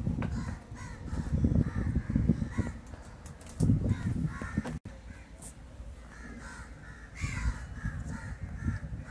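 Crows cawing in several short runs of calls, over a low rumble.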